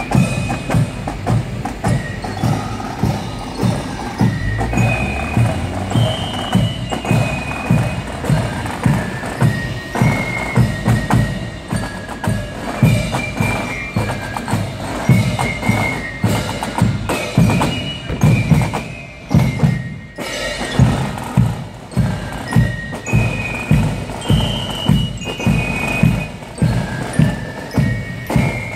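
A Tambourkorps marching band playing a march: drums keep a steady, even march beat under a high melody of short notes.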